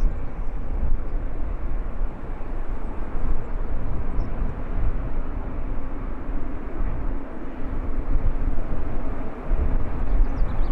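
Gusty wind buffeting the microphone in an uneven low rumble, over the steady rush of a jet airliner.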